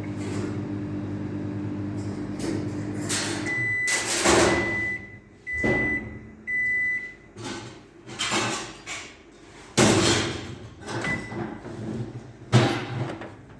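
Microwave oven running with a steady hum that stops a few seconds in, then beeping several times at the end of its heating cycle. Knocks and clatter follow as the door is opened and the dish handled.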